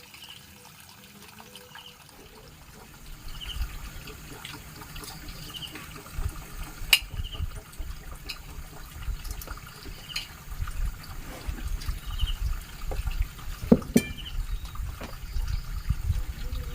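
Rainwater trickling and dripping, with a few sharp clicks and a low rumble that builds from about three seconds in.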